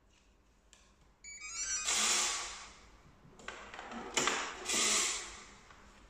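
A smart hotel card door lock gives a short electronic beep tune about a second in as it reads the card, followed by several longer mechanical sounds from the mortise lock's latch, bolt and handle working.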